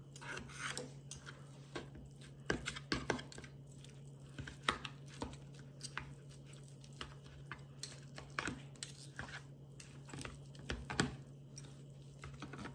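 Metal knife and fork cutting boneless chicken thighs in a plastic bowl, with irregular clicks and scrapes as the utensils hit the bowl.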